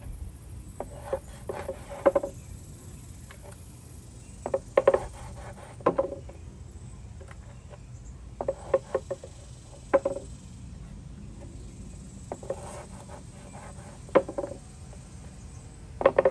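Knife slicing a stingray wing into strips on a plastic cutting board: clusters of quick knocks and scrapes every second or two as the blade cuts through the cartilage and meets the board, over a low steady rumble.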